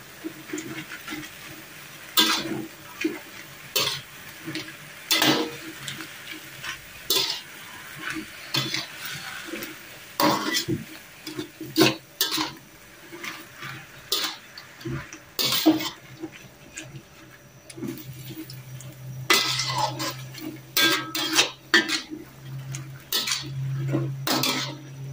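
Spatula scraping and knocking against a wok, stir-frying midin fern shoots and mushrooms, in irregular strokes about one or two a second.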